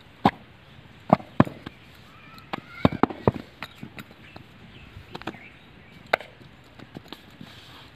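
Wet clay slapped by hand into brick moulds and the moulds knocked down on the ground: irregular sharp thuds, several a few seconds apart and a quick cluster about three seconds in.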